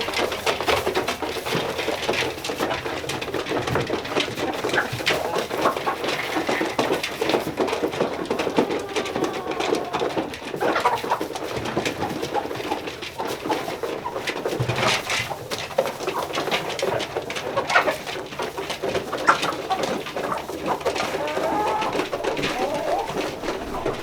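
A flock of laying hens clucking and murmuring softly in a coop, with many small clicks and taps as they peck at their feed.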